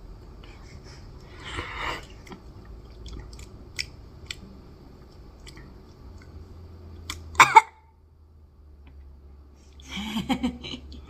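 Mouth and handling sounds of someone eating a balut, with a short slurp-like hiss about two seconds in and small clicks. A brief sharp vocal cry comes about seven and a half seconds in, and low voice sounds follow near the end.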